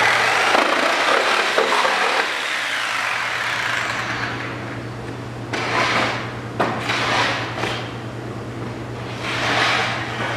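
Bosch electric reciprocating saw cutting into pallet wood: a loud, harsh run for the first few seconds that tails off, then several short bursts of cutting about halfway through and another near the end.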